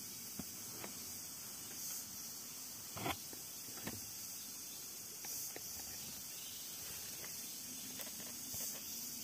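Forest ambience: a steady high insect buzz that swells every few seconds, with a few scattered soft knocks, the loudest about three seconds in.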